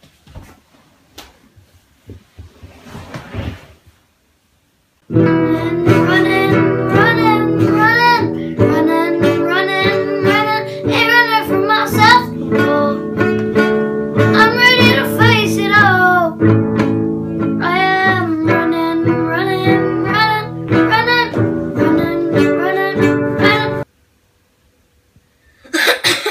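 Music with guitar and a singing voice, starting abruptly about five seconds in and cutting off abruptly near the end; before it, only faint knocks and rustling.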